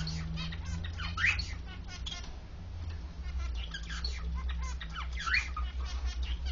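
Zebra finches singing and chirping: a rapid run of short, high notes, with a rising call about a second in and again near five seconds, over a steady low hum.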